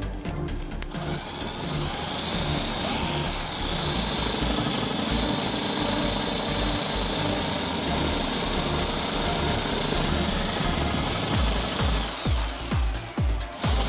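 Electric drill running with a steady whine as a twist bit bores through stacked wooden craft sticks. It starts about a second in and breaks up unevenly near the end.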